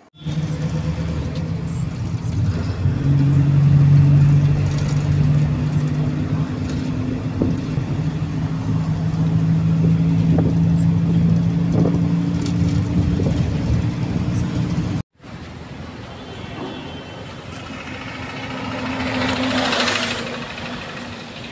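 Steady engine and road noise from inside a moving vehicle. About fifteen seconds in it cuts to quieter roadside traffic noise, with a vehicle passing near the end.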